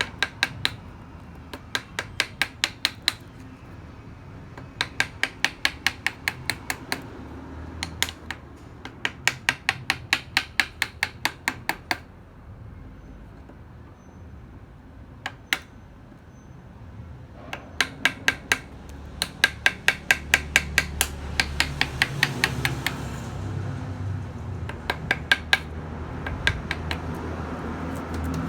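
Rapid runs of sharp taps from a mallet driving a carving chisel into chestnut wood, about five strikes a second in bursts of several blows with short pauses between.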